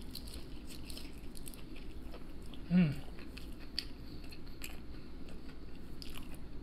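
Close-up crunching and chewing of crispy beer-battered fried cod. There are many small crackling clicks, and a short falling hum from the eater a little under three seconds in.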